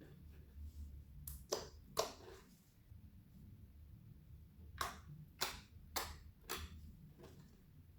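Clear slime being worked by hand, giving a series of sharp pops: two close together early on, then a run of four about half a second apart past the middle, and a fainter one near the end.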